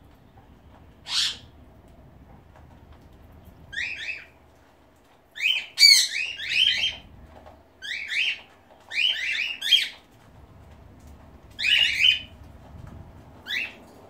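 Pet cockatiels calling: short, shrill squawking calls in quick clusters, one call about a second in, a busy run from about four to twelve seconds in, and a last short call near the end.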